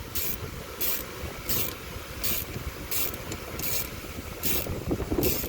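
Socket ratchet being cranked in steady back-and-forth strokes, each back-swing giving a short rattle of clicks, about one every three-quarters of a second, as it tightens the nut that compresses the steering column lock plate.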